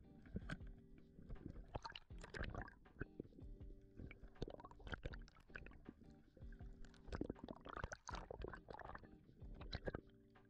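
Soft background music with steady held notes, under irregular muffled underwater knocks and rumbles from a gloved hand working a speargun shaft and line close to the camera.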